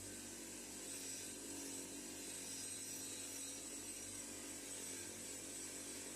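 Steady whirring of a spinning wire wheel brushing a thumb-wheel pin, with a thin high whine running through it, as deoxidised rust residue is scrubbed off.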